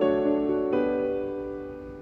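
Slow piano music: a chord at the start and another about two-thirds of a second in, each left to ring and fade away.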